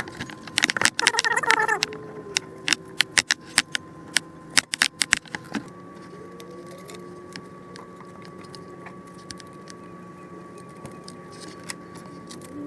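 Light metallic clinks and rattles of metal parts and bolts being handled while the new water pump is fitted: a dozen or so sharp ticks over the first five seconds, then only a faint steady hum.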